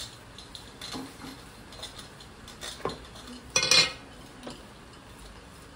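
A hand spreading gram-flour paste over a colocasia leaf on a stone counter: soft scattered rustles and taps, with one brief, much louder clatter about three and a half seconds in.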